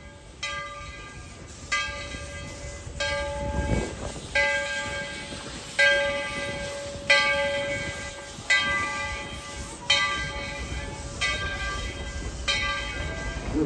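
Steam locomotive's bell ringing steadily, one stroke about every 1.3 seconds, each stroke ringing on and fading before the next.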